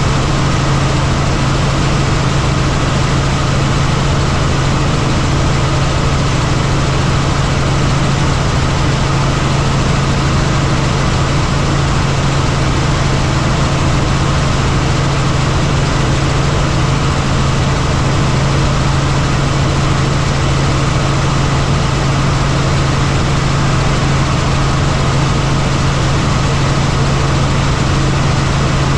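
Helicopter engine and main rotor in flight, heard from inside the cabin: a loud, steady drone with a strong low hum.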